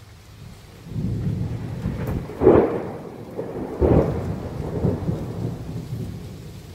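A roll of thunder over steady rain. The rumble swells about a second in, peaks loudly twice near the middle, and dies away toward the end.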